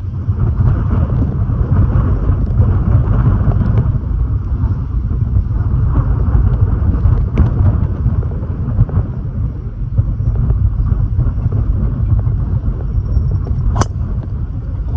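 Strong wind buffeting the microphone: a steady, loud low rumble. A single sharp click near the end.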